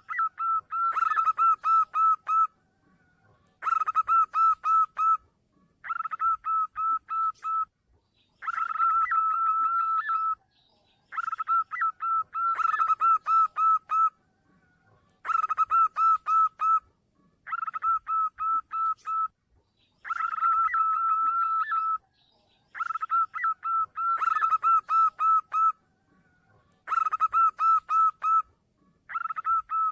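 Zebra dove (perkutut) cooing song. It repeats in phrases of quick pulsed coos, one phrase every two to three seconds, with silent gaps between them.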